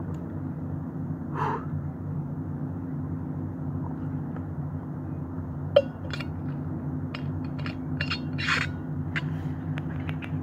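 Steady low drone of motorboat engines out on the lake. A few short splashes and ticks of water sit on top of it, the sharpest knock about six seconds in.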